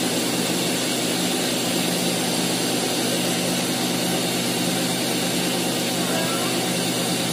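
Cotton candy machine running steadily as sugar floss is spun and wound onto a stick: a constant motor hum with a hiss over it.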